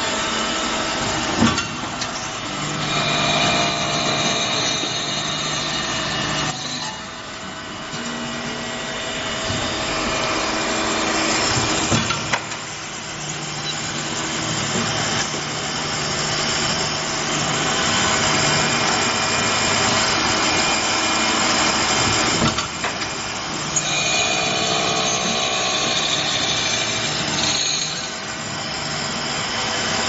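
JZ-2.3B automatic padlock-shell drilling machine running, its drill spindles whining in stretches of several seconds over steady machine noise while cutting holes in the padlock bodies. Three sharp clacks fall among the stretches.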